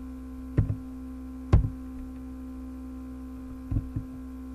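Computer keyboard keys struck one at a time: a handful of separate, sharp keystrokes at uneven intervals, two of them close together near the end, over a steady electrical hum.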